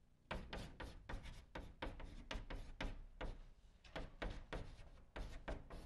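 Chalk writing on a blackboard: a quick run of short strokes and taps, about four a second. It starts a moment in and stops just before the end.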